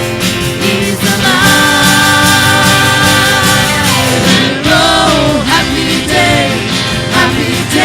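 Worship band with guitar and singers performing an upbeat contemporary worship song. Long held sung notes in the first few seconds give way to moving vocal lines over steady backing.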